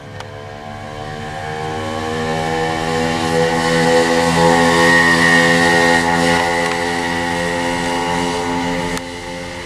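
Small two-stroke moped engine running steadily as the moped rides past. It grows louder to a peak about four to six seconds in, eases off as it rides away, and drops suddenly near the end.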